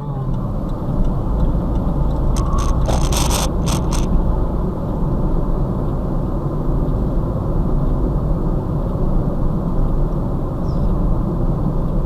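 Steady road and engine noise inside a moving car, heard through a dashcam, with a quick run of clicks or rattles about two and a half to four seconds in.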